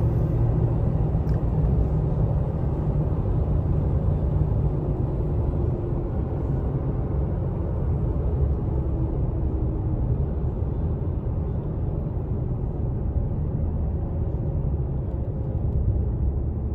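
2017 Toyota Tacoma pickup cruising at about 60 mph: a steady low rumble of engine and road noise, with no unusual noises, which the owner takes as a sign the truck has no issues.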